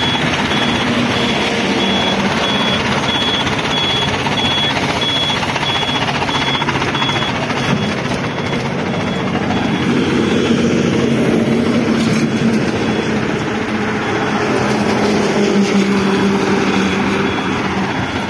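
Mobile crane's engine running loudly and steadily, its note rising a little about ten seconds in. A high beeper sounds about twice a second for the first seven seconds.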